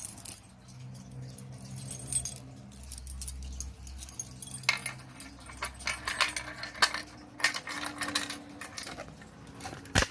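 Keys jangling and metal clicks from handling a Simplex 4251-20 fire alarm pull station with its reset key, growing busier partway through, with one sharp click near the end.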